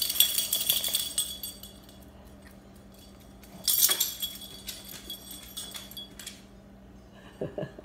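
Small dog's collar tags jingling in two short bursts as it moves, one at the start and another about three and a half seconds in, over a steady low hum.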